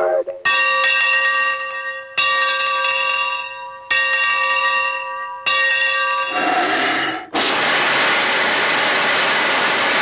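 Four struck, bell-like metallic tones, each ringing out and fading, about one and a half seconds apart. A short wavering tone follows, and then, about seven seconds in, a loud steady hiss begins.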